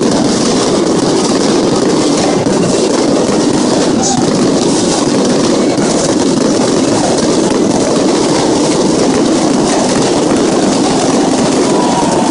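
Loud, steady noise of a large stadium crowd, with fine crackling from fireworks going off.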